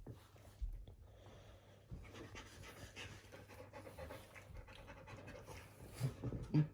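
Siberian husky panting rapidly at close range, with a couple of louder short sounds near the end.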